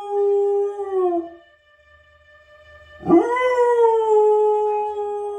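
Dog howling at a trumpet fanfare on the television: a long, held howl that drops away about a second in, then, after a short pause, a second howl that swoops up, holds steady and falls away at the end.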